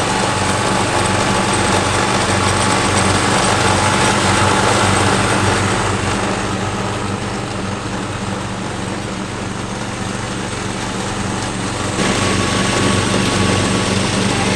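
Petrol engine of a Cyclone riding lawn mower running steadily while mowing grass. It drops back somewhat about six seconds in and comes back louder near the end.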